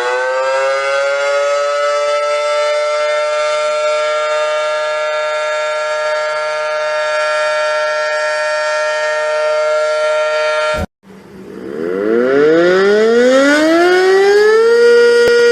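Civil defense-style warning siren: it finishes winding up into a steady two-note tone and holds it, then cuts off suddenly about eleven seconds in. A second siren then winds up slowly and levels off at a lower steady tone near the end.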